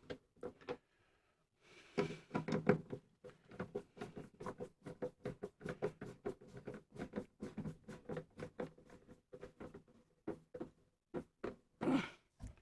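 Irregular small clicks, taps and knocks of hands and tools handling parts and wiring on a gas furnace, a few louder knocks about two seconds in, over a faint steady hum.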